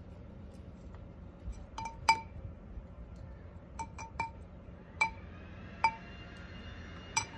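A metal spoon clinking against a ceramic pot while perlite is spooned onto the potting soil: about eight sharp, irregular clinks, each ringing briefly.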